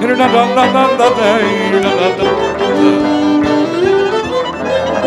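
Hungarian Gypsy band playing an instrumental break in a magyar nóta song: the lead violin carries the melody with wide vibrato over the band's cimbalom and double bass accompaniment, holding one note a little past halfway before sliding up.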